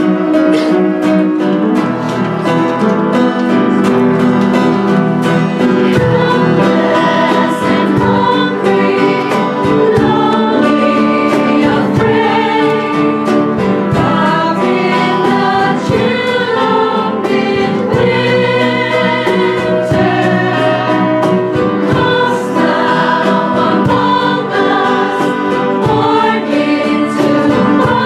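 Mixed choir of women's and men's voices singing a Christmas carol.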